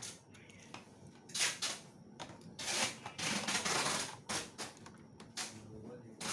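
Dell Inspiron N5010 laptop parts being handled: a few sharp clicks and knocks, with a longer scraping noise from about two and a half to four seconds in.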